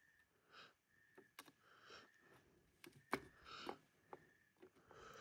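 Near silence with a few faint, sharp clicks, the clearest about three seconds in.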